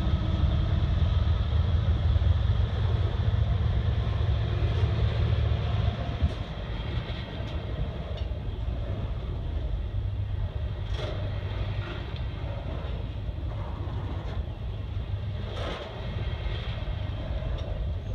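Canadian National double-stack intermodal freight train rolling past, steel wheels on rail. A heavy low rumble for the first six seconds drops to a lighter rolling sound, with a few sharp clacks as wheels cross rail joints.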